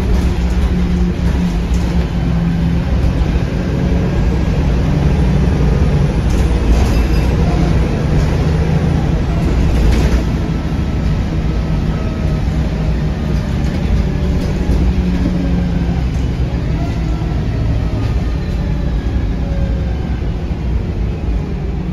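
Interior sound of a VDL SB200 single-deck bus on the move: its rear-mounted diesel engine runs steadily with a note that rises and falls, over road noise and body rattles, with a single knock about ten seconds in.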